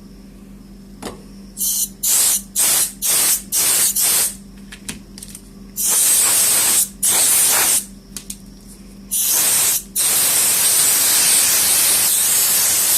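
Can of compressed air duster spraying in bursts to blow dust off the opened phone: about five quick short puffs, then a few longer blasts, then one long continuous hiss near the end.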